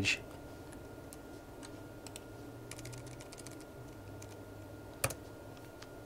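Typing on a computer keyboard: soft scattered key presses with a quick run of keystrokes in the middle, then one louder click about five seconds in.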